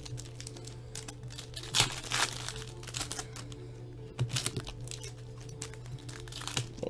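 Crinkling and tearing of foil trading-card pack wrappers being handled and opened, with sharp crackles about two seconds in and again about four seconds in, over faint background music.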